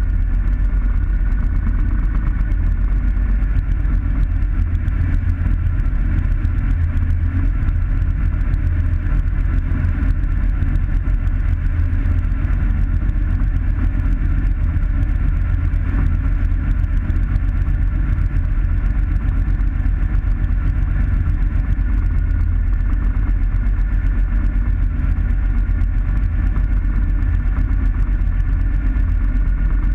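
Light aircraft's piston engine and propeller running steadily at idle on the ground, heard from inside the closed cockpit as a loud, even low rumble.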